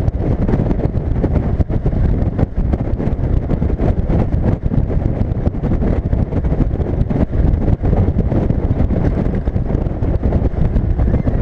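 Heavy wind buffeting on an exposed, bonnet-mounted microphone as a 1979 Land Rover Series 3 109" drives along the road, with the truck's engine and road noise underneath. The rumble is steady and fluttering, with no let-up.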